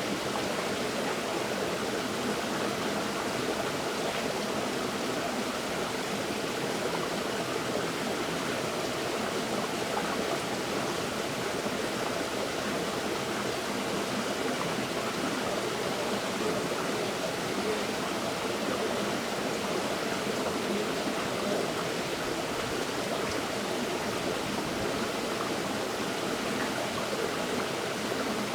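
River water flowing over rocks, a steady rushing babble with no change in level.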